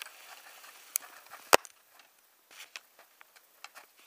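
Hiking boots and trekking-pole tips on rock and snow: scattered small clicks and scrapes, with one sharp knock about one and a half seconds in.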